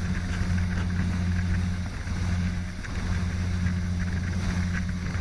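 Motorboat engine running at a steady pitch, with a rush of noise over it; the sound cuts in suddenly.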